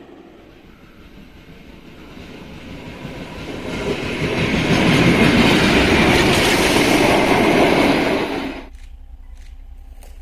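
Rail vehicle passing on the track, wheels rumbling and clattering over the rails. It builds up over a few seconds, then cuts off abruptly near the end.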